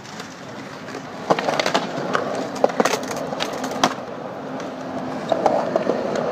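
Skateboard wheels rolling on smooth concrete, the rolling noise growing louder about a second in, with several sharp clacks of the board and trucks.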